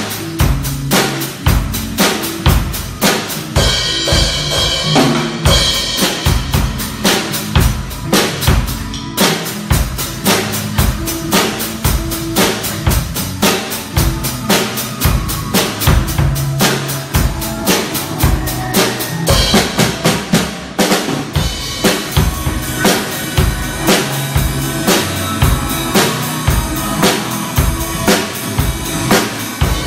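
A Tama drum kit played in a steady, continuous beat of bass drum, snare and cymbals, with cymbal washes twice, about four and nineteen seconds in.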